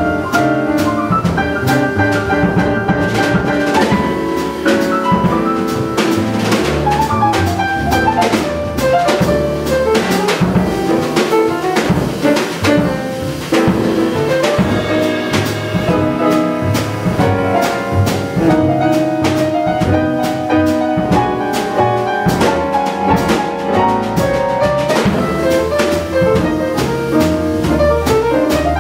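Small jazz combo playing live: grand piano, upright bass and drum kit, with saxophone.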